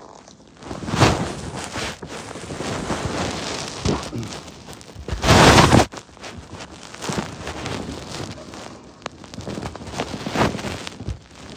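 Close-up handling noise as a mailed package is opened: rustling, rubbing and bumping near the microphone, with a loud rub or bump about halfway through, amid the creaking of the bed it is being opened on.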